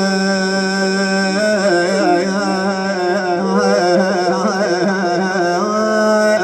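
A man's solo voice singing a long, held wordless 'aah' in a lamenting Shia elegy chant. The note wavers through an ornamented run in the middle and settles on a steady held note again near the end.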